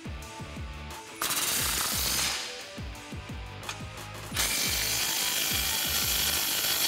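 Cordless impact wrench hammering an exhaust band-clamp nut tight, in two runs: a short burst about a second in and a longer one from about four and a half seconds on.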